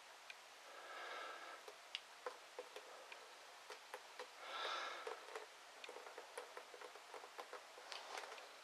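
Quiet, irregular ticks and clicks as a vinyl LP record covered in fluid acrylic paint is tilted by hand and the paint runs and drips off its edge. Two soft breathy sniffs come about a second in and at about four and a half seconds, the second the loudest sound here.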